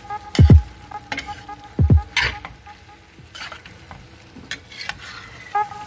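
Ladle stirring a pot of lomi noodle soup: scraping and clinks over a faint simmer. Two deep thuds fall in the first two seconds.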